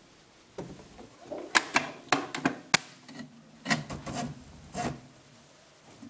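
Top cover of a VOGEL manual slide printer being put back on by hand: rubbing and a string of sharp clicks and knocks as it slides down and seats into place, in two bursts.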